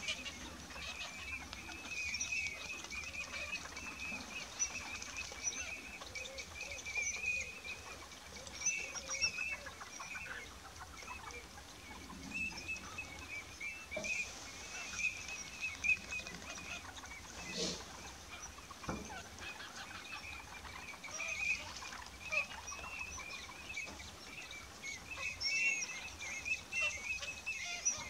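A flock of birds calling at once, a steady dense chatter of many short high calls with no single call standing out.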